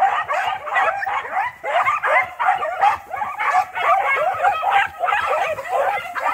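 Pack of beagles baying in full cry on a rabbit's track: many dogs' voices overlapping in a constant run of short rising-and-falling yelps and bays.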